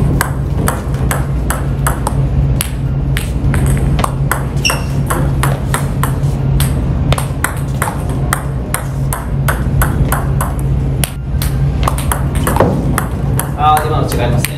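Table tennis balls clicking: quick, sharp ticks of plastic balls bouncing on the table and striking rubber-covered rackets during short serves and stop-receive practice, several clicks a second.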